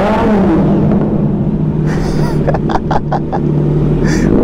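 Kawasaki Z900's inline-four engine idling steadily through an aftermarket exhaust, its sound echoing in an enclosed parking garage. A few short clicks come about two to three seconds in.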